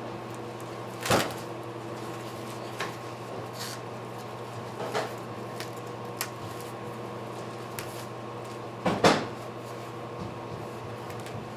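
Sharp knocks and clicks of saucer swing parts being handled during assembly: two louder knocks, about a second in and near the end, and several lighter clicks in between, over a steady hum.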